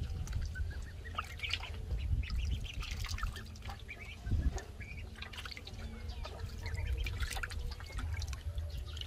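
Ducklings paddling and dabbling in water in a clay jar: small splashes and drips with short scattered calls, over a steady low rumble.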